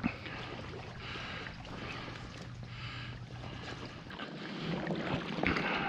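A person wading through shallow swamp water: rhythmic sloshing and swishing of water around the legs with each step.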